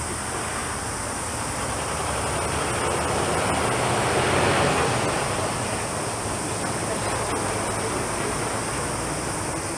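Jet airliner engines running with a steady roar that swells to a peak about halfway through and then eases off.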